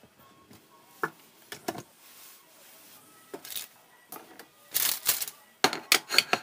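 A few light clicks of dishes set on a counter, then, from about halfway through, a quick run of sharp wooden clacks as a bamboo sushi rolling mat is moved and laid flat on the cutting board, its slats clattering.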